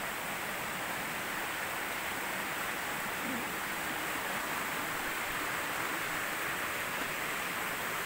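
Steady rushing of flowing water from a stream or waterfall, an even hiss with no breaks.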